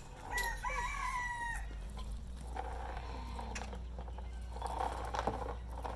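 A single pitched animal call, about a second long, a moment in.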